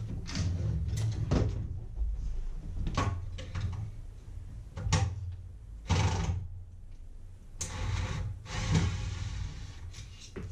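Cordless drill/driver backing screws out of a black plastic speaker cabinet, with a steady low motor rumble and a longer run about eight seconds in. Sharp clicks, knocks and scrapes of the plastic casing being handled come every second or so.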